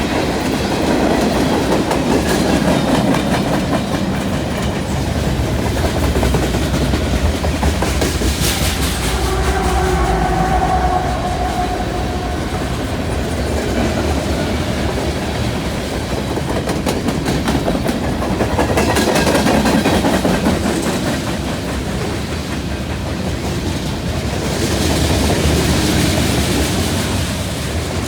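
Freight cars of a CN train rolling past close by, with a steady rumble and clatter of wheels on the rails that swells and eases a few times.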